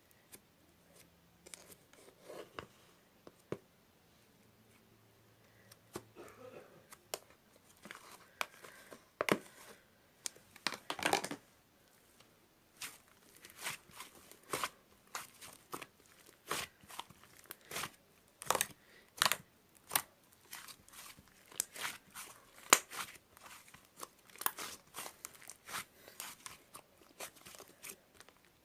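Something being torn and crinkled by hand in many short, irregular bursts, sparse at first and coming thick and fast from about eight seconds in.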